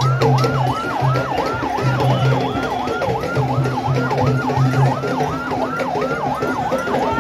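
A yelping siren sweeping rapidly up and down in pitch, about three or four sweeps a second, over the noise of a large marching crowd.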